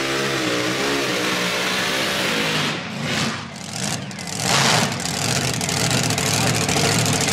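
Tractor-pull engines running in the distance, their pitch slowly rising and falling, under general track noise; the sound dips and a brief rush of noise comes about three to five seconds in.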